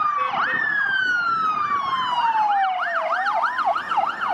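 Police car siren: a fast rising-and-falling yelp, about three cycles a second, layered over a slower wail that falls steadily for a couple of seconds and then rises again near the end.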